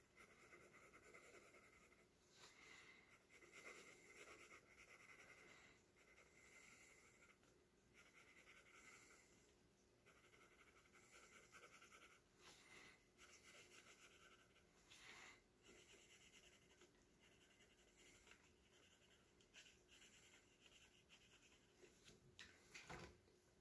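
Faint scratching of a coloured pencil shading on sketchbook paper, in repeated runs of quick strokes with short pauses between them.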